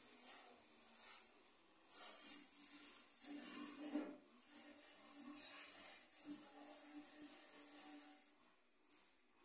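Handling noise: several short bursts of rubbing and scraping in the first four seconds, then fainter rubbing.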